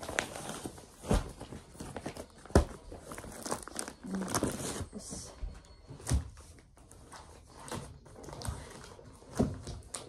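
Papers and plastic document sleeves crinkling and rustling as they are handled and stacked, with a few sharp knocks as bundles are set down on a wardrobe shelf.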